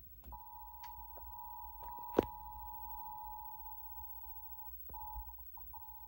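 Emergency Alert System attention signal: two steady tones sounding together, the 853 and 960 Hz EAS alarm, played through a TV speaker. It starts just after the beginning and breaks up briefly a few times near the end. A single sharp click sounds about two seconds in.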